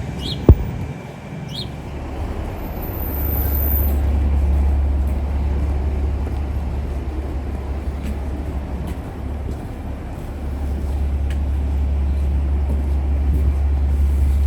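Outdoor street noise: a steady low rumble of traffic, with one sharp knock about half a second in.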